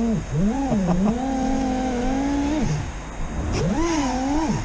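FPV freestyle quadcopter's brushless motors (T-Motor Velox 2207 1950kv) and propellers whining, the pitch rising and falling with the throttle. The throttle is chopped about two and a half seconds in, so the whine drops away, then it is punched back up about a second later.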